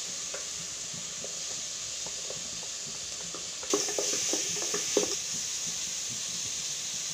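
Sliced onions sizzling in hot olive oil in an aluminium pot. About three and a half seconds in, a wooden spatula stirs them: the sizzle gets louder and the spatula knocks and scrapes against the pot a few times.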